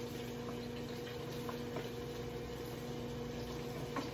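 Chicken wings frying in an electric deep fryer: a steady sizzle of hot oil under a constant low hum, with a few faint clicks.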